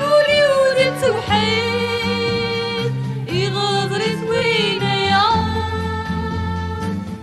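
Recorded Kabyle song: a melodic lead that glides between notes, over steady accompaniment chords and bass.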